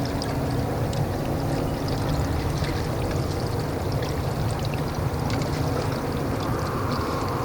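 Water sloshing steadily at the water's edge, with a low rumble and a faint steady hum underneath.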